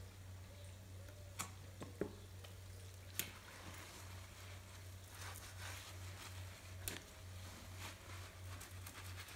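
Shampoo being worked by hand through a horse's wet tail: faint squelching and fizzing of lather in the hair, with a few sharp clicks.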